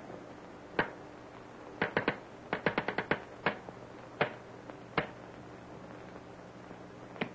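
Morse code tapped out as sharp, irregular clicks, about a dozen in all, with a quick run of several near the middle, over a low steady hum.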